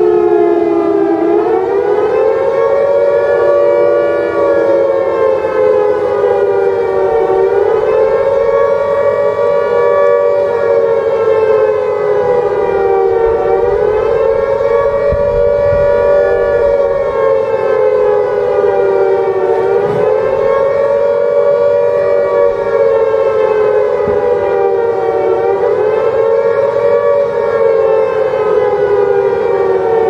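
Civil-defence-style siren wailing as an emergency warning alarm, two close tones sounding together. Their pitch slowly rises and falls, peaking about every six seconds.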